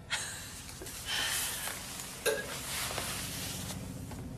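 Clothes rustling as a quilted jacket on a hanger is handled, with one sharp click a little over two seconds in.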